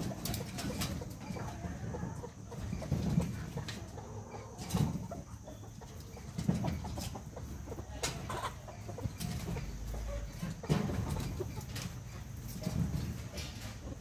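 A flock of domestic chickens clucking, low short clucks every second or two, with scattered short clicks and scratches.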